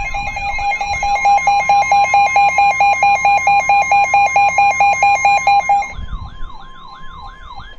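NOAA Weather Radio alert: the steady 1050 Hz warning alarm tone, layered with a rapid multi-pitched beeping and a repeating warbling siren-like sweep from receiver alarms. The beeping stops about six seconds in while the tone and the warble carry on.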